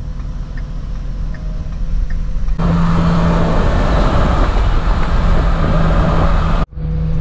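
Low engine and road hum inside the cab of a Ford F-250 Super Duty diesel pickup driving slowly. About two and a half seconds in it switches to louder wind and road noise through an open side window over a steady low engine drone, which cuts out for a moment near the end.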